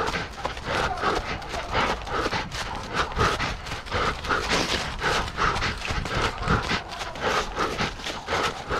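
A runner's footfalls at race pace, about three strides a second, with hard rhythmic breathing in time with them, on a canicross run with a dog.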